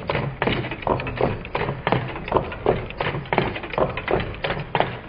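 Meccano-built twin-cylinder Stirling engine running, its displacers landing at each end of their travel and giving a regular knocking of about three knocks a second.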